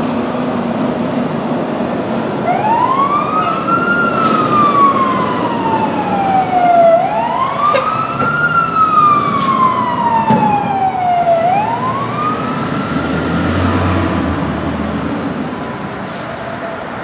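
Fire truck siren wailing, rising and falling in pitch three times: each time it climbs quickly, then slides down over about three seconds. A low engine rumble joins near the end as the siren fades.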